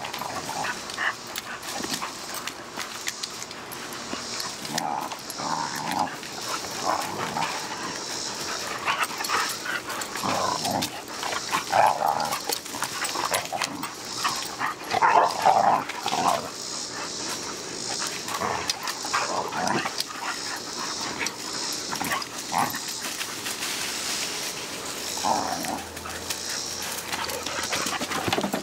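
Young dogs play-fighting, giving short bursts of vocal noise every few seconds, loudest about halfway through.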